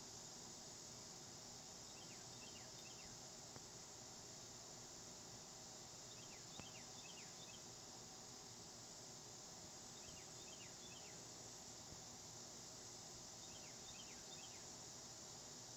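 Faint outdoor quiet with a steady high hiss, over which a small bird repeats a short phrase of four or so quick downward-sliding chirps about every four seconds.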